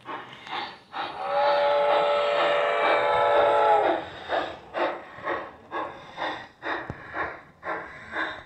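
Large-scale model steam locomotive's onboard sound system chuffing steadily, about two to three chuffs a second. About a second in, a chime whistle sounds for about three seconds.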